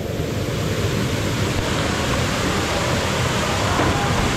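Small waterfall pouring into a rock-walled pool, a steady rushing noise. Near the end a person plunges into the pool with a splash.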